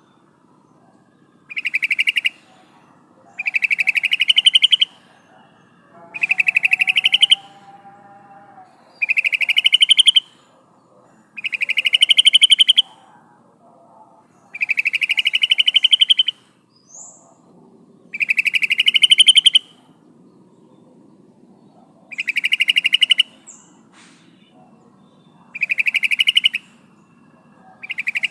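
Female yellow-vented bulbul (trucukan) calling to males: a rapid chattering phrase about a second long, rising slightly in pitch, repeated about ten times at gaps of two to four seconds.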